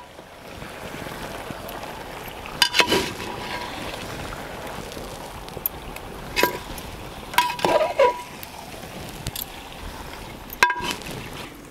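A steel slotted ladle stirring raw chicken pieces in an aluminium pot, mixing in salt and turmeric; the ladle knocks and scrapes against the pot a few times, each with a short metallic ring, over a steady background hiss.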